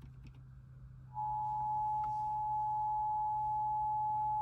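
Emergency Alert System attention signal over the radio: a steady two-pitch tone of about 853 and 960 Hz sounded together, starting about a second in, with a faint low hum beneath it.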